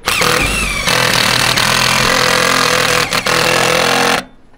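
Power drill with a nut-driver bit driving a hex-head screw through a galvanized metal patch into a metal roof seam. The motor spins up with a rising whine, runs under load for about three seconds, and stops about four seconds in.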